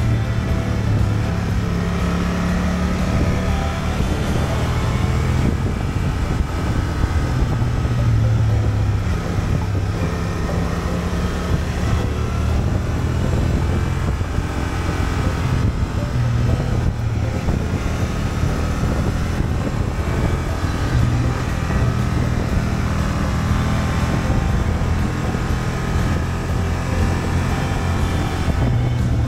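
2023 Honda Transalp's 755 cc parallel-twin engine running on the road, its note rising and falling a little as the throttle changes, over steady wind and road noise.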